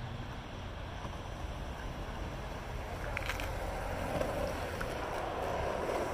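Skateboard wheels rolling on asphalt, a steady rumble, with wind rumbling on the microphone and a couple of brief clicks about three seconds in.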